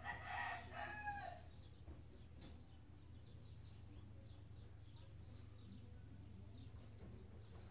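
A hen clucks briefly in the first second and a half, then faint high chirps of small birds come on and off, over a steady low hum.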